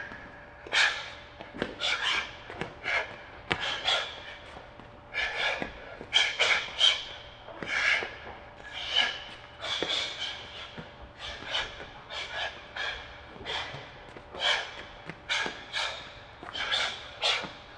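A shadowboxing boxer's sharp, hissing exhales, one with each punch or movement, coming in quick irregular bursts about one or two a second.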